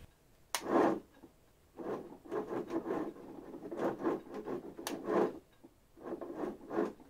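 A 3D-printed quasi-direct-drive robotic actuator with a two-stage herringbone planetary gearbox, swinging a robot leg back and forth at high speed. Each quick move gives an irregular burst of gritty motor and gear noise, with a sharp onset about half a second in and another near five seconds.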